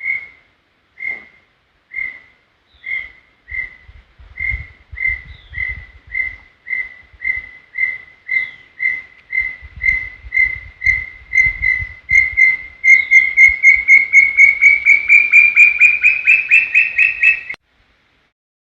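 Brown tinamou (inhambuguaçu) song: a series of clear whistled notes, about one a second at first, that speed up, grow louder and rise slightly in pitch into a rapid run, then stop abruptly near the end.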